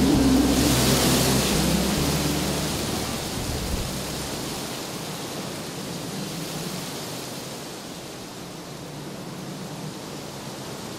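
Wind rustling through a tree's leaves: a steady rushing hiss that slowly fades. The last low notes of a guitar song die away under it in the first few seconds.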